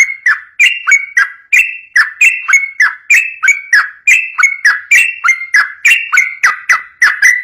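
Yellow-vented bulbul (trucukan) singing a rapid, unbroken run of loud, bubbly whistled notes, about three a second.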